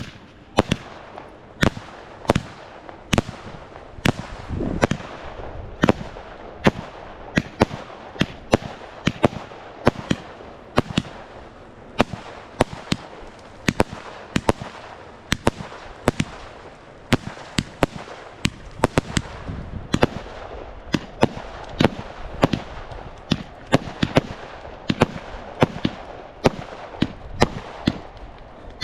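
Fireworks going off: an irregular run of sharp bangs and pops, two or three a second, over a steady background hiss.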